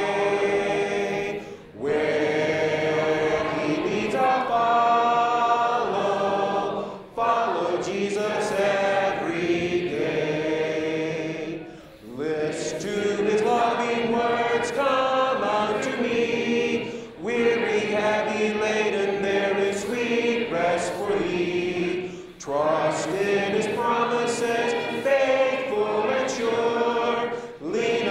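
Congregation singing a hymn together without instruments, phrase after phrase, with a brief pause for breath about every five seconds.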